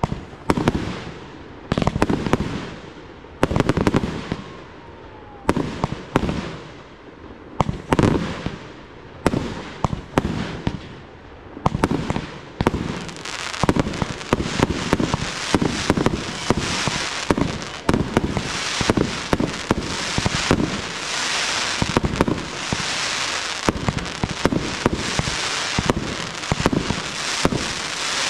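Fireworks display: aerial shells bursting with loud, echoing bangs about every second or two. About halfway through, a dense crackle and hiss of many rapid small reports takes over and runs on with scattered bangs.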